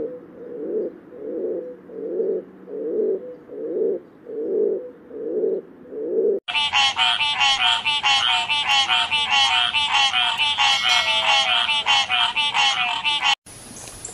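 A rock pigeon cooing, a low coo repeated about every three-quarters of a second. About six seconds in, water frogs take over, croaking in a loud, fast, rattling chorus that cuts off abruptly near the end.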